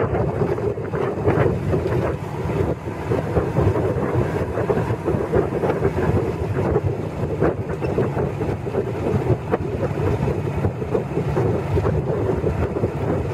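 Wind buffeting the microphone of a moving motorcycle, a continuous fluctuating rush, with the bike's running and road noise underneath.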